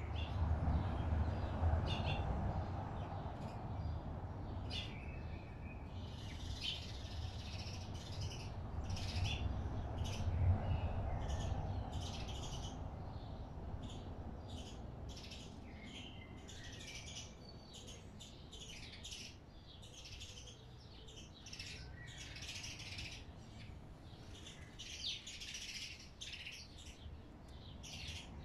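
Small songbirds chirping at a nest box: many short, quick chirps repeated throughout. Under them a low rumble swells twice, near the start and about ten seconds in.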